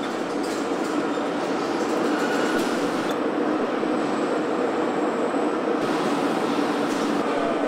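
Steady machinery din of a heavy-equipment assembly plant floor, with scattered light clatter from metal parts.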